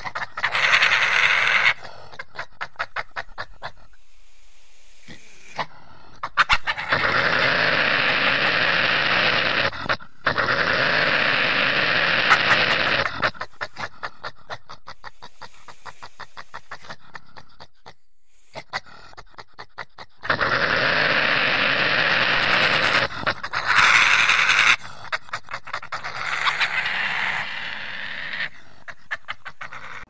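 Badger vocalizing: a fast run of short clicking, chattering pulses, broken twice by long harsh, noisy stretches of several seconds each that start and stop abruptly.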